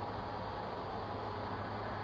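Steady background hiss with a constant low hum, the noise floor of a doorbell camera's microphone, with no distinct events.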